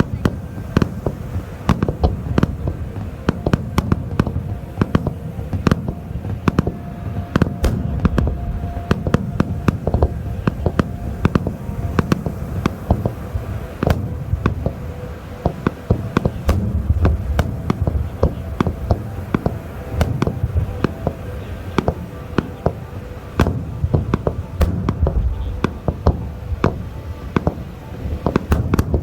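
Fireworks bursting in a rapid, continuous barrage: many sharp bangs a second over a deep rolling rumble.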